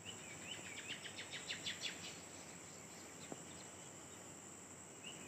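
Forest insects keeping up a steady high-pitched drone, with a bird singing over it in the first two seconds: a few wavering notes, then a quick run of about eight sharp notes growing louder.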